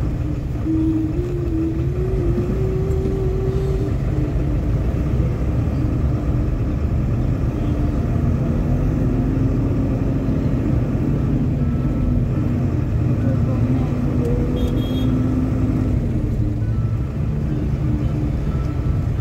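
Steady low rumble of road traffic and wind, heard while riding in slow city traffic, with a held engine drone that wavers slightly in pitch.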